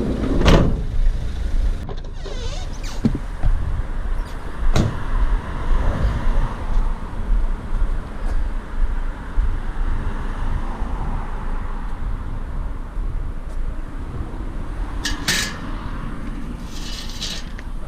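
Vehicle running on the road, a steady low rumble, with a few sharp knocks or rattles near the start, about five seconds in and about fifteen seconds in, and a short hiss near the end.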